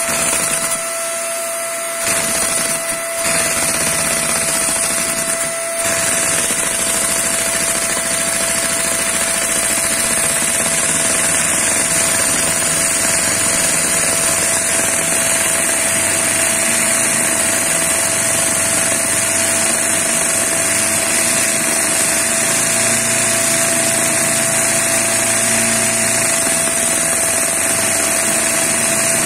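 A vacuum cleaner's steady whine drives a LEGO inline two-cylinder vacuum engine, which picks up about two seconds in, falters briefly twice, then runs steadily.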